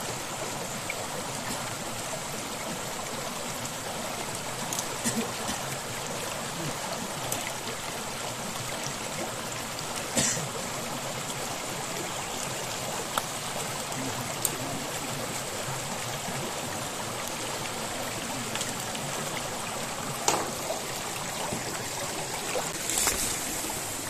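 Shallow rocky stream running steadily, a continuous trickling rush of water, with a few short sharp knocks now and then, the clearest about ten and twenty seconds in.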